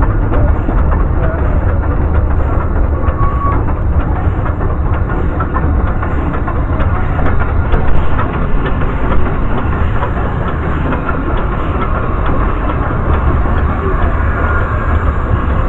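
Narrow-gauge train running on the Welsh Highland Railway: a steady rumble with the rattle and clatter of the carriages on the track.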